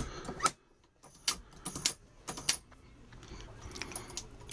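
Sharp metallic clicks and clinks from a Hornady Lock-N-Load AP progressive reloading press being cycled to drop a fresh powder charge into a brass pistol case, then the case being slid out of the steel shell plate. About five distinct clicks come in the first two and a half seconds, with fainter clinks near the end.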